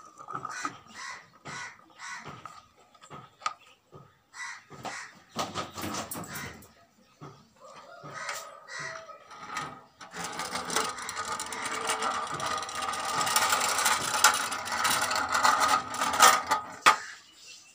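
Birds calling in short, repeated calls, then a louder, dense stretch of noise over the second half.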